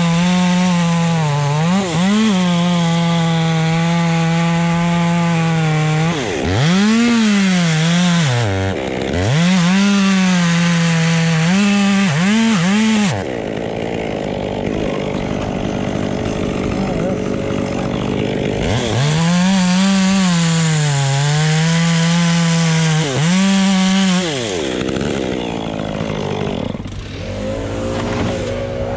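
Two-stroke chainsaw running at high revs, cutting hard maple. The engine note drops and picks up again several times as the throttle is eased off and squeezed, with a rougher stretch of about five seconds in the middle.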